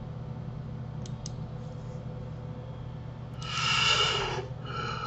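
Low steady hum with two faint clicks about a second in, then a breathy exhale into the microphone lasting about a second, with a weaker breath near the end.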